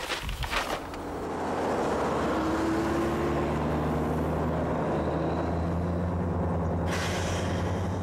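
Off-road 4x4 engines running steadily as the vehicles drive away over stony desert, the engine note rising about three seconds in. Brief paper rustling at the very start, and a short hiss of tyres on gravel near the end.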